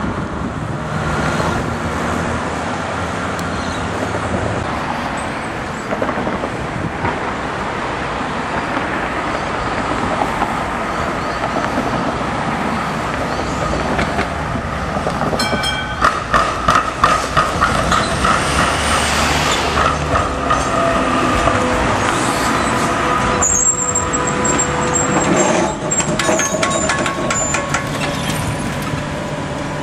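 Melbourne B2-class electric tram approaching and passing, its wheels clicking in a quick rattling series over the tram-railway diamond crossing about halfway through, followed by a steady whine as it rolls past. Road traffic runs underneath.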